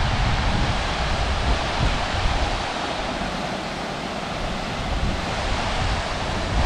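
Waterfall pouring, a steady rushing of falling water, with low wind rumble on the microphone for the first couple of seconds and again in the second half.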